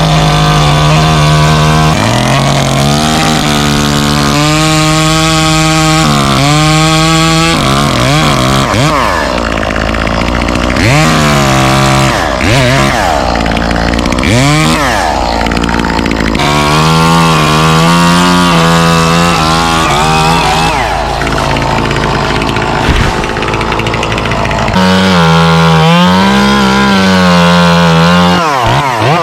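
Two-stroke chainsaw cutting, its engine pitch rising and falling repeatedly as the throttle is opened and eased off. A steady low engine drone runs underneath until near the end.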